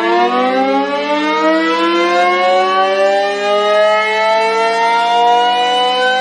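Sentry 20V2T mechanical outdoor warning siren winding up, its pitch rising slowly and steadily the whole time. It sounds as a chord of two tones over a steady low hum.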